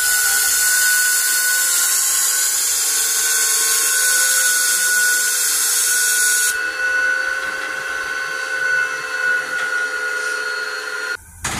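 Loud steady hiss of escaping steam with a steady high tone running through it. The hiss eases about six and a half seconds in, and the sound cuts off just before the end.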